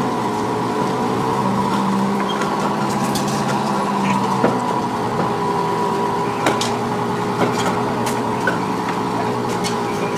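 Heavy construction machinery engines running steadily, with a few short knocks in the middle.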